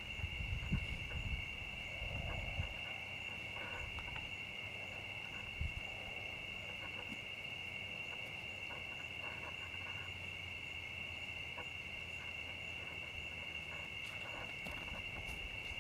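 A steady night insect chorus: a continuous high, even trilling that does not change. Low rumbling noises come through in the first few seconds.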